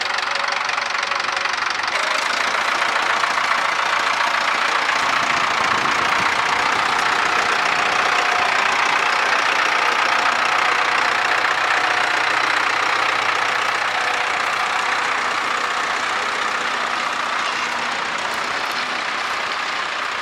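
Tractor engine running steadily, easing off slightly in the second half.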